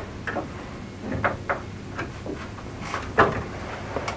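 Irregular knocks, clunks and clicks of wooden cabinetry being handled and fitted together as a side bookcase is set against the wall-bed cabinet and clamped at the top, the loudest knock about three seconds in.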